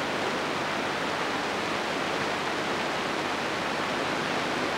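Steady hiss of reception noise on the sound channel of a weakly received amateur television signal.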